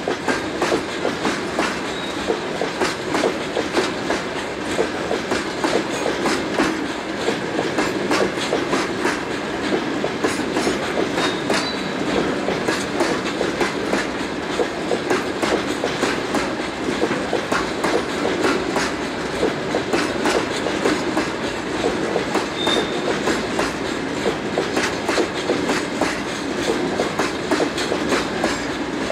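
Railway wagons rolling past steadily, their wheels clattering continuously over the rail joints, with a few brief faint high squeaks.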